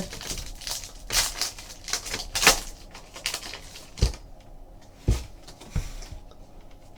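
Trading cards being flipped through by hand: irregular clicks and rustles of card stock sliding and snapping, with a few dull knocks about four, five and six seconds in.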